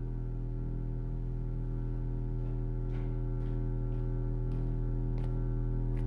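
Film-score drone: a low chord of many steady tones held unchanging and slowly swelling in loudness, with a few faint ticks in the second half.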